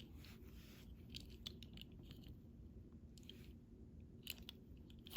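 Near silence with a few faint, scattered clicks and crinkles as small die-cast toy cars and their packaging are handled.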